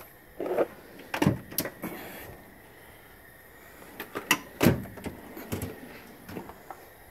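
Drawers of a Mac Tools Tech 1000 tool box sliding and knocking, with tools and cans in them clattering. There are several short slides and clunks in two clusters, about a second in and again about four to five seconds in.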